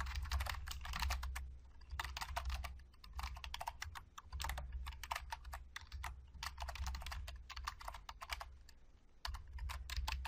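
Typing on a computer keyboard: runs of quick key clicks broken by short pauses, with a dull low thump under the keystrokes.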